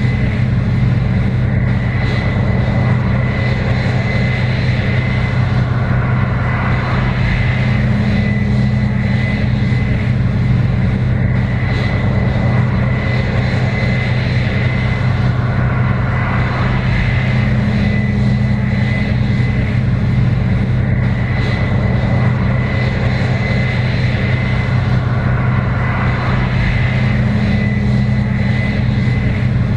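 Case IH 7120 Axial-Flow combine running steadily while harvesting corn: a constant engine drone with a thin high whine above it, swelling slightly about every ten seconds.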